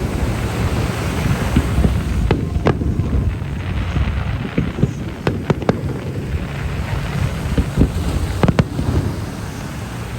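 Aerial fireworks bursting: a string of sharp bangs and cracks at irregular intervals, some in quick clusters, over a steady low rumble of wind on the microphone.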